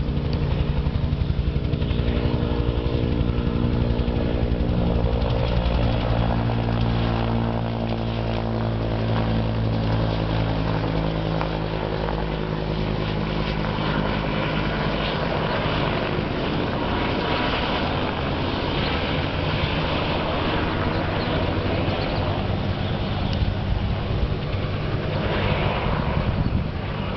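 Super Huey (UH-1H) helicopter flying overhead: the steady beat of its two-bladed main rotor over its turbine. Its pitch drops slightly as it passes, about seven to ten seconds in, after which the sound turns to a rougher rush.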